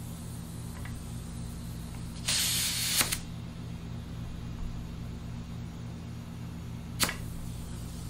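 A short hiss of compressed air from a shop air hose at the motorcycle tire, cut off by a sharp snap, then a second sharp snap a few seconds later, over a steady low hum.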